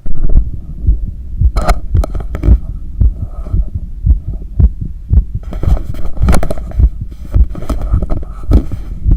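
Heartbeat heard through a stethoscope: regular low thumps, about two a second, with a few sharper clicks mixed in. The heart is recovering during cool-down after a long run.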